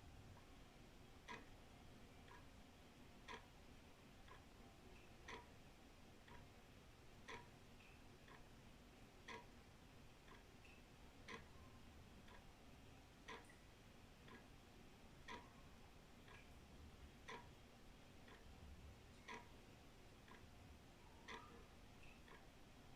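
Old wall clock ticking faintly and evenly, about one tick a second, with every other tick louder: a steady tick-tock.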